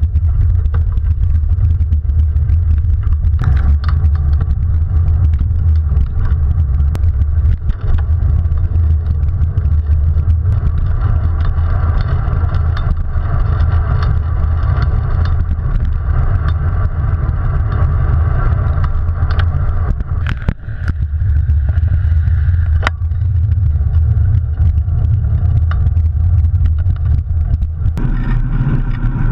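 Wind buffeting and road rumble on a bike-mounted action camera's microphone while a road bicycle rides along: a steady low rumble with a noisy rush above it and a few sharp knocks from bumps. Near the end the rumble changes character.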